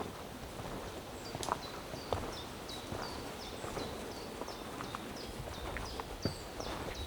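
Footsteps scuffing along a forest trail. A songbird sings a long series of short, high notes, each sliding downward, about three a second.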